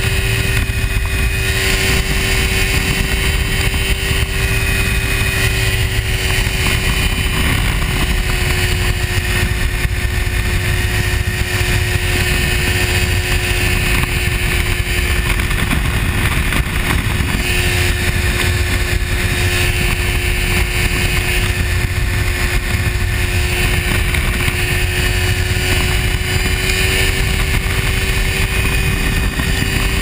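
Ultralight airplane's engine and propeller running steadily in cruise flight, a constant drone with a steady tone, mixed with heavy wind rush in the open cockpit.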